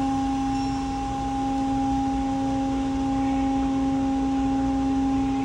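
Steady machinery hum from an aircraft carrier's helicopter lift: one constant tone with overtones over a low rumble, unchanging in pitch and level.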